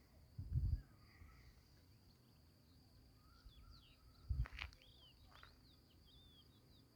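Outdoor nature ambience: an insect drones steadily at one high pitch while small birds give short chirps. Two low thumps sound, one under a second in and one after about four seconds.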